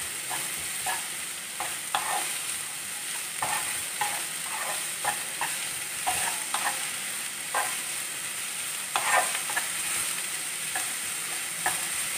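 Diced onions sizzling in hot coconut oil in a nonstick pan while being sautéed, with a wooden spatula stirring and scraping through them in short, irregular strokes over a steady frying hiss.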